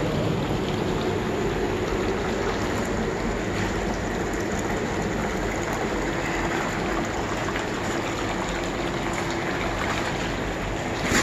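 Garden hot tub running, its water churning and bubbling in a steady rush with a faint steady hum underneath. A short sharp knock comes just before the end.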